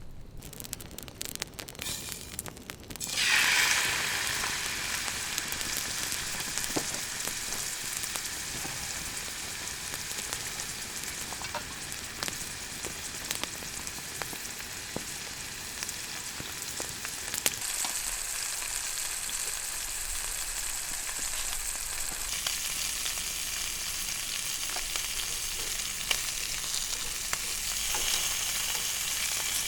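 Campfire crackling and hissing: a few scattered snaps, then about three seconds in the fire flares up into a steady dense hiss with sharp pops throughout.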